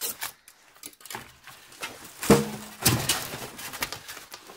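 Unpacking handling noise: polystyrene foam packing rubbing and scraping against a boxed metal instrument, with several sharp knocks. One knock about two seconds in carries a short squeak.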